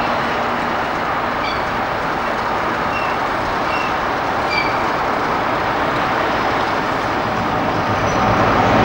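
Train running past, a steady rushing rumble that grows louder about eight seconds in. A few short high chirps sound over it in the first half.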